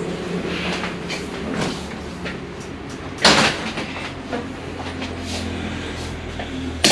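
Break-barrel air pistol being broken open, cocked and loaded by hand: sliding and clattering metal handling noises over a steady low hum, with a loud clack about three seconds in and a sharp snap near the end.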